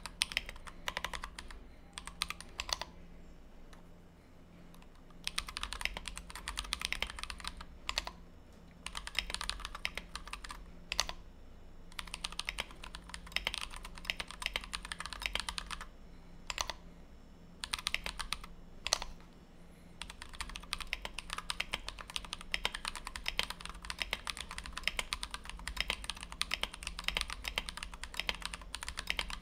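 Mechanical keyboard typing: a Tofu 60 with a brass plate, lubed and filmed Everglide Dark Jade switches and blank PBT OEM keycaps, struck in fast runs of keystrokes. Several short pauses break the typing in the first two-thirds, then it runs on continuously.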